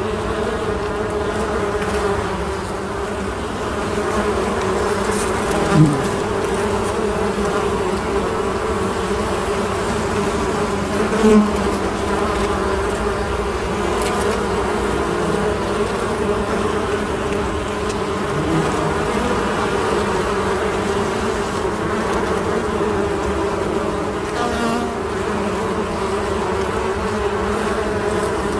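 Many bees buzzing together in a steady, even hum. Two brief louder buzzes rise out of it, about six and eleven seconds in.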